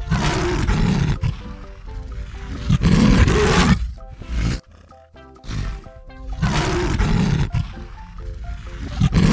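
Lion roaring, several long roars in a repeating sequence, over light background music.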